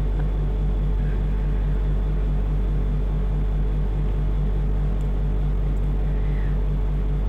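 Steady low hum with a faint higher steady tone running under it, the constant machine drone of the store.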